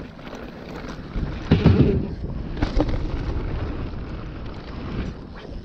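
Wind buffeting the microphone and tyres rolling over dirt as a mountain bike rides fast down a dirt jump trail, with a louder surge about a second and a half in.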